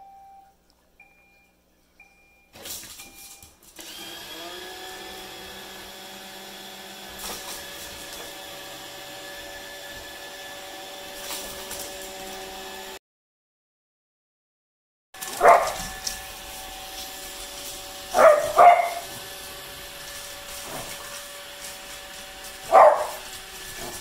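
Roomba robot vacuum giving a few short beeps, then its motors spinning up with a brief rising whine and running steadily. In the second half a beagle barks four times over the vacuum's hum, twice in quick succession.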